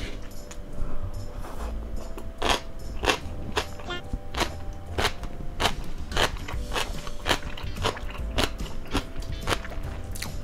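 Close-miked chewing of crunchy pickled celtuce stems (gungchae): an even rhythm of crisp crunches, just under two a second, setting in about two and a half seconds in.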